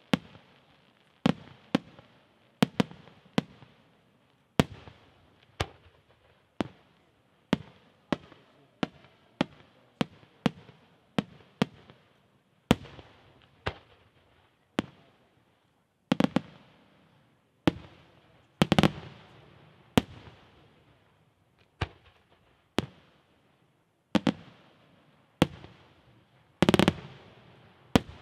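Aerial firework shells bursting in a steady run of sharp, echoing bangs, about one every half-second to second. A few heavier bursts with longer rolling tails come in the middle and near the end.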